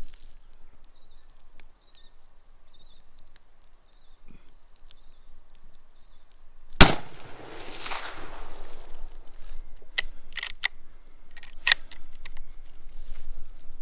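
A single rifle shot about seven seconds in, its report rolling away for about two seconds. Several sharp clicks follow a few seconds later.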